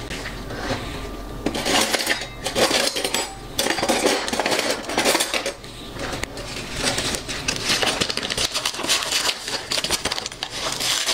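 Rim of an upturned glass tumbler twisted and scraped against a ceramic plate through a layer of salt and sugar: a gritty grinding with small clinks of glass on the plate, going on throughout.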